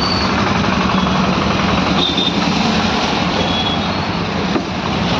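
Motor vehicle engine running steadily, with a constant rushing noise over a low hum.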